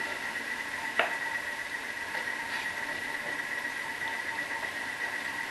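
Chopped onion frying in a pan on a gas hob, a steady sizzling hiss with a faint high tone underneath. One sharp knock about a second in and a few light taps of a wooden spoon stirring in the pan.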